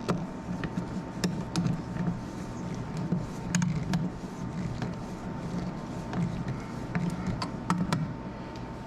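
Irregular clicks and short scrapes of a hand screwdriver and fingers working an electrical outlet's mounting screws into the wall box, over a faint steady tone.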